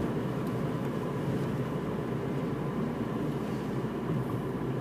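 A car's engine and tyres running steadily on the road, heard from inside the moving car's cabin.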